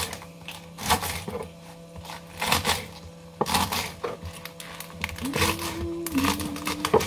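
A kitchen knife chopping leafy greens roughly on a cutting board, in irregular strokes about every half second.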